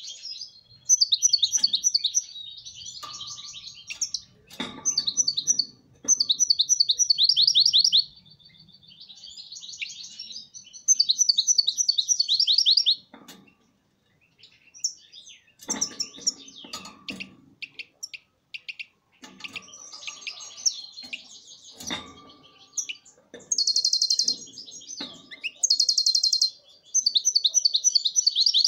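European goldfinch singing in phrases of rapid high twittering and trills, one to two seconds each with short pauses between. A few soft knocks fall in between the phrases.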